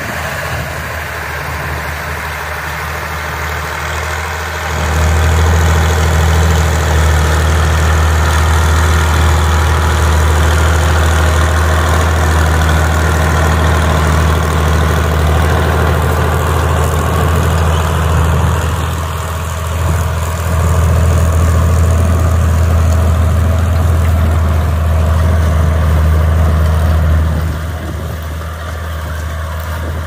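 Diesel engine of a County four-wheel-drive tractor working under load while pulling a plough, a steady low hum. It grows louder about five seconds in as the tractor comes close, dips briefly partway through, and drops back near the end.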